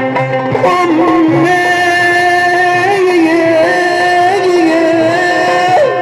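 Egyptian Middle Eastern religious music. The drumming drops out about half a second in and a single melody line carries on alone, holding long notes with sliding ornaments.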